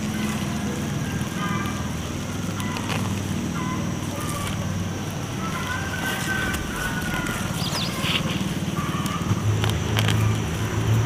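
A motor hums steadily and grows louder near the end. Under it runs a steady high-pitched tone, with a few short chirps.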